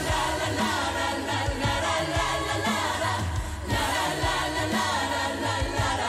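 Mixed choir of men and women singing together over an instrumental backing with a bass line, at full performance volume.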